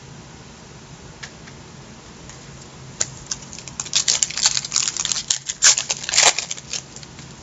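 Stiff trading cards being handled and slid against each other: after a few quiet seconds, a quick run of sharp clicks and papery rustles lasting about four seconds.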